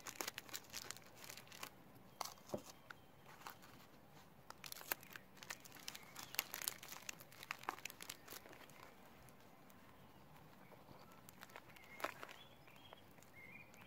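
Faint crinkling and crackling of a taped newspaper marionette torso being handled and pressed, a patter of small crackles through the first eight or nine seconds, then fewer and quieter, with one more crackle near the end.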